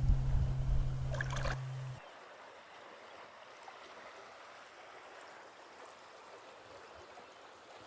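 Guitar music stops about two seconds in, leaving river water flowing steadily.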